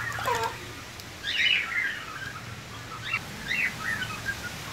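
Young chickens peeping in short, high chirps at irregular intervals as they peck at food, with one lower call falling in pitch near the start.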